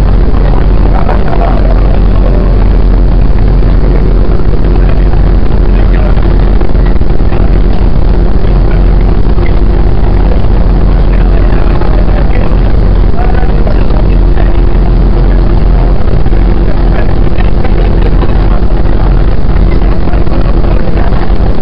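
A 115 series electric train running at speed, heard from inside the car: a loud, steady rumble of wheels and running gear, with a steady hum joining about four seconds in.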